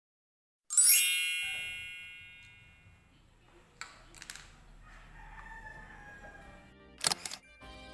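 A bright ringing call that rises at first, then fades away over about two seconds. Short double clicks follow about three seconds later and again near the end.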